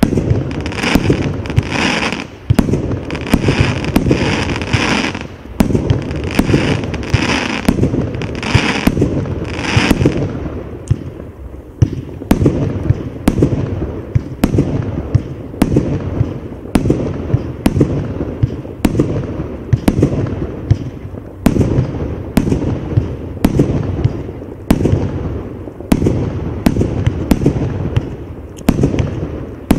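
Absolute Fireworks 'Rolling Thunder' consumer cake, 150 shots from 30 mm tubes, firing in rapid sequence: sharp loud reports about twice a second, running together into a continuous rumble. In the first ten seconds or so each shot carries an added higher-pitched layer.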